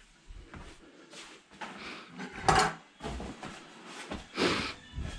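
Handling noises: a run of short knocks, scrapes and rustles, the loudest about two and a half seconds in and another near four and a half seconds.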